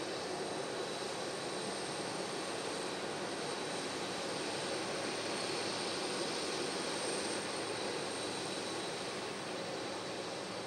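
Boeing 767-300 freighter's twin jet engines running as it taxis: a steady rushing noise with a thin, high, steady whine over it.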